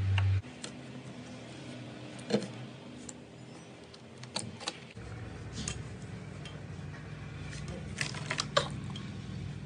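Slime being pressed and worked by hand, giving scattered sharp clicks and pops, a few louder ones around the middle and near the end, over a low hum.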